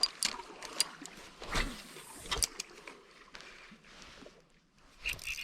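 Scattered light clicks and knocks of fishing gear handled in a canoe. Near the end a spinning fishing reel starts cranking with a steady ratcheting whirr.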